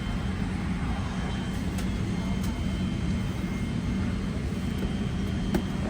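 Steady low cabin hum inside a parked Boeing 777-300ER before engine start, the drone of the cabin air supply, with a few faint clicks.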